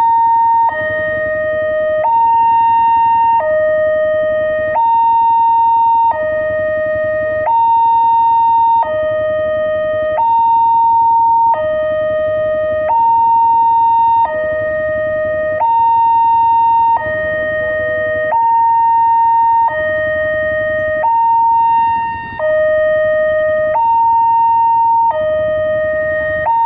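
Railway level-crossing warning siren sounding a two-tone hi-lo wail, switching between a higher and a lower steady tone about every second and a half, the higher tone louder.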